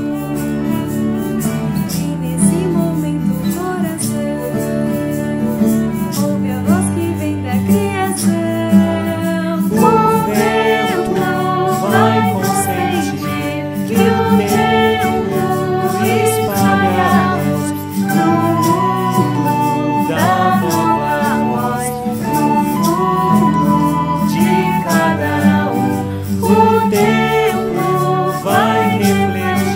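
A small acoustic ensemble of guitar, cello, violin and recorders playing a gentle song, with voices singing along.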